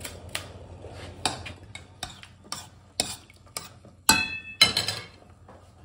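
A metal spoon stirring clam meat in a stainless steel pot, clinking against the pot several times, with a louder ringing metal clank about four seconds in.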